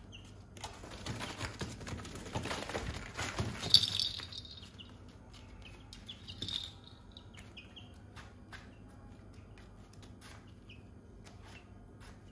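Young chickens scuffling and rustling on a tarp floor for a few seconds, loudest about four seconds in, with a few short high peeps; after that only faint scattered scratches and ticks.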